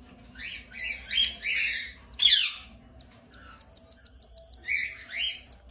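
Lovebirds chirping and squawking in short, harsh, shrill calls, the loudest a longer squawk about two seconds in. A run of faint quick ticks follows in the middle, then two more calls near the end.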